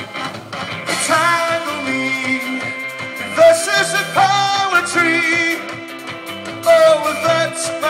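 Live rock band playing a song: electric guitars, keyboards and a horn section of saxophones and trumpet through the PA.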